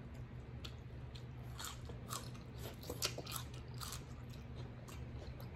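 Eating king crab: quiet chewing with scattered small clicks and crunches as crab meat is picked from the shell.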